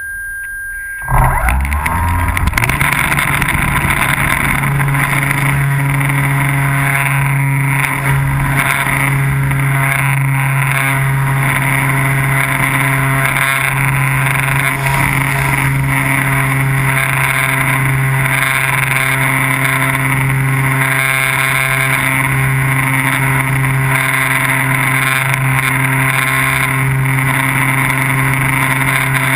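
A model UAV's motor and propeller start up about a second in, cutting off a steady high tone. The pitch rises a little over the next few seconds, then holds steady while the motor runs.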